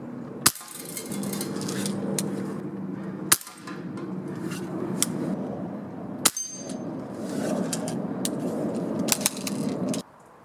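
Pellet gun shots on steel targets: three sharp cracks about three seconds apart, the last followed by a brief metallic ring. A few lighter clicks come near the end, over a steady rustling of handling noise.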